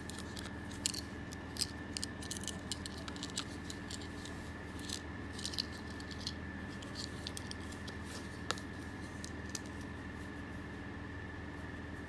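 Handling noise of a kydex sheath holding a small stainless steel multitool being taken off its cardboard backing card and turned in the hand: irregular light clicks and taps, most of them in the first half, with one sharp click past the middle.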